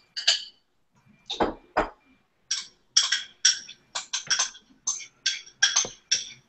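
Diced vegetables being scraped off a plate into a mixing bowl: two duller knocks about a second and a half in, then a run of short scrapes and clinks of utensil on plate and bowl, about two a second.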